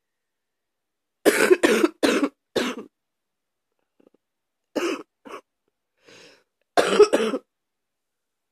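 A person's deep cough in fits: a run of four hard coughs, then two smaller ones, then two more hard coughs near the end.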